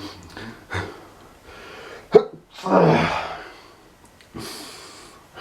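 A man sneezing from allergies, about two seconds in: a breathy build-up, a sharp, sudden, loud burst, then a longer noisy blast. A hissing breath follows near the end.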